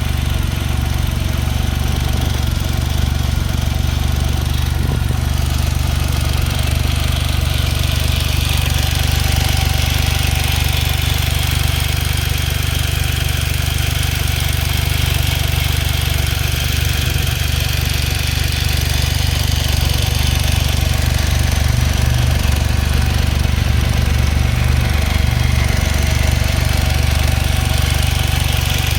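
Smart Roadster's 101 PS turbocharged three-cylinder engine idling steadily with a clattering noise, which the owner suspects may come from the valves or the timing chain.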